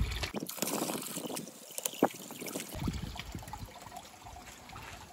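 Stream-fed water trickling from the spout of a stone fountain, with a few sharp clicks about two seconds in.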